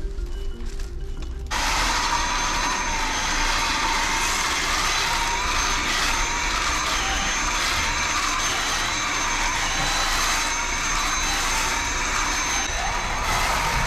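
Vacuum cleaner switched on about a second and a half in, its motor then running steadily with a high whine over a loud rushing noise.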